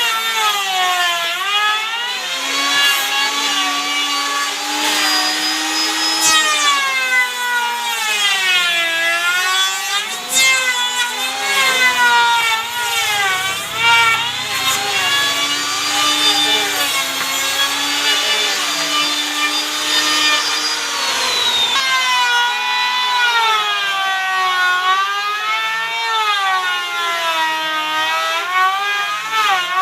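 A woodworking power tool cutting wood, its motor pitch sagging and recovering over and over as the blade takes the load, over a steady hiss of cutting.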